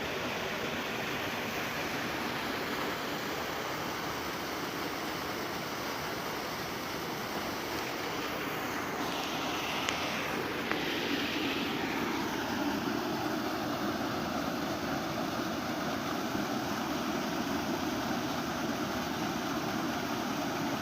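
Running water rushing steadily. Two small sharp clicks come about halfway through, and after them the rush sounds deeper.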